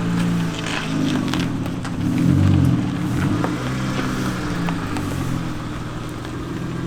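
Car engine running at low revs as the car creeps slowly over a steep curb, the revs rising briefly about two and a half seconds in and then settling.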